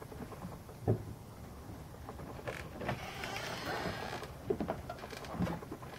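A door being opened: a knock about a second in, then creaking, rustling and clicks as the door swings open and someone steps out through it.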